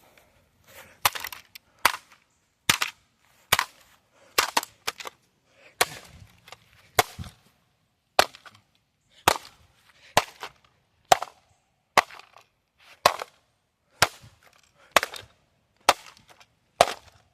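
Hammer repeatedly striking a Sangean digital clock radio's plastic casing: sharp, separate blows at about one a second, around seventeen in all. The casing is not yet breaking open.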